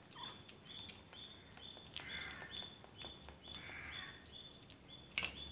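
Kitten eating fish and rice from a steel plate: soft clicks and ticks of chewing and of food on the plate, with a short high chirp repeating about twice a second.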